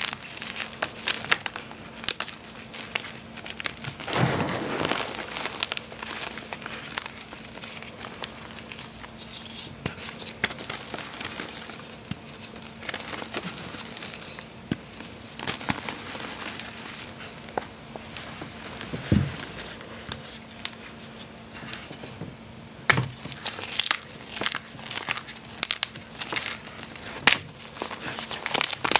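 Blocks of gym chalk crumbled and crushed by hand in a heap of powder and fragments: dry, crisp crackling and crunching with scattered sharp snaps, coming thicker and louder near the end.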